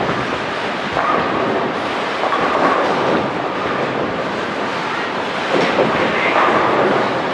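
Busy bowling centre din: bowling balls rolling down many lanes and pins clattering, a continuous rumble with sharper knocks now and then.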